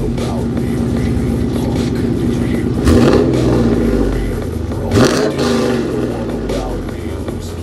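A 5.7-litre LS V8 with headers and a full aftermarket exhaust idles with a steady rumble. The throttle is blipped twice, about 3 and 5 seconds in, each rev rising sharply and dropping back.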